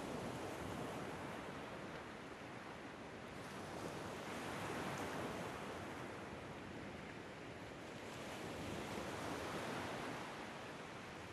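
Ocean surf on a meditation soundtrack: a steady rushing wash that swells and ebbs every few seconds as waves roll in.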